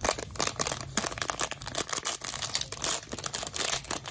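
Foil wrapper of a trading-card pack crinkling and crackling in quick, irregular bursts as it is handled.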